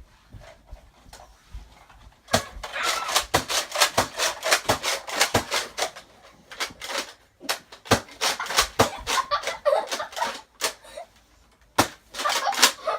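Nerf blaster firing foam darts: quick runs of sharp clacks, several a second, starting about two seconds in and coming in three runs with short gaps between them.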